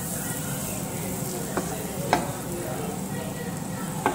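Butter sizzling as it melts over low heat in a frying pan, stirred with a wooden spatula, with three light knocks of the spatula against the pan, the sharpest about two seconds in.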